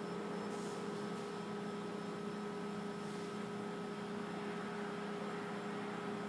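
Steady electrical hum: a few constant tones held over a faint hiss, with no change in level.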